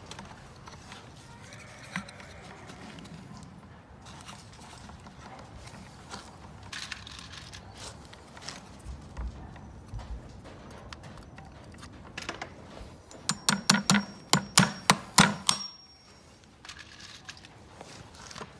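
Farrier's driving hammer tapping a horseshoe nail through the shoe and pad into the hoof: about a dozen quick, ringing metal strikes, starting about two-thirds of the way in. Before them there are only soft handling sounds.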